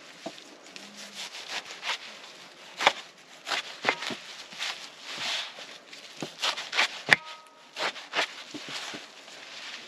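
A village-made knife cutting fresh leafy greens on a metal tray: irregular cutting strokes and leaf rustling, with sharper clicks where the blade strikes the tray. The loudest, about seven seconds in, rings briefly like struck metal.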